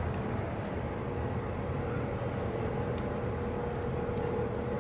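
Airport terminal ambience: a steady low hum and hiss with a faint held tone underneath, and one faint click about three seconds in.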